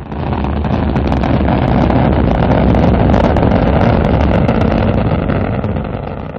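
Rocket engine firing: a loud, steady rumble with crackling through it, fading near the end.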